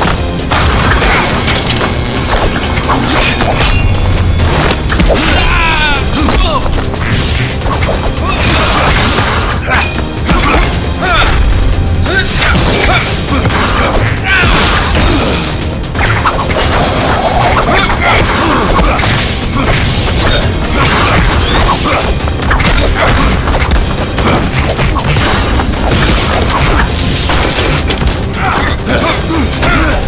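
Fight-scene soundtrack: music under a constant run of added hit, thud and boom sound effects, one impact after another.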